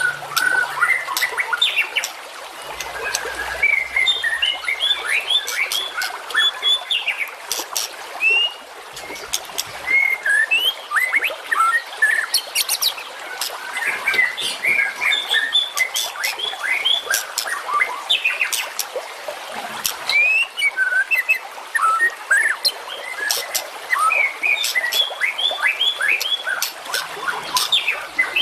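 Recorded songbirds singing densely: a rapid, unbroken run of short chirps, whistled glides and sharp clicking notes. It is a masteran tutor recording, played to train caged songbirds such as the white-rumped shama.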